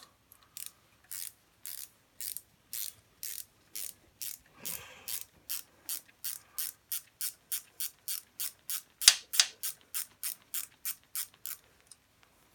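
Ratchet wrench clicking in regular strokes as it winds an old exhaust stud out of a motorcycle cylinder head by two nuts locked against each other. The clicks come about two a second at first, get quicker after the middle, and stop shortly before the end.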